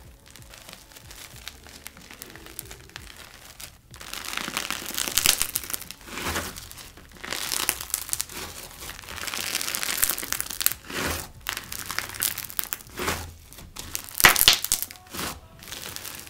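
Thick slime packed to its limit with bingsu beads being squeezed and kneaded by hand, crackling and crunching in uneven bursts, with a few sharper, louder snaps. The first few seconds, while it is being stretched, are quieter.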